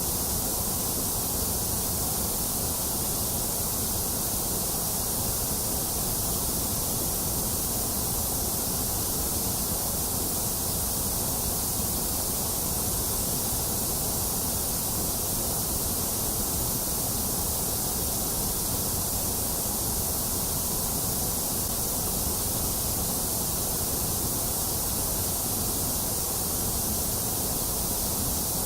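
Steady, unbroken hiss of a generated white-noise track for soothing infants, with less in the middle range than in the lows and highs.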